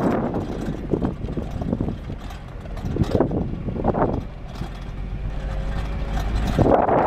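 Jeep driving up a rough dirt track: the engine runs steadily underneath, with irregular rushes of wind and road noise a few times.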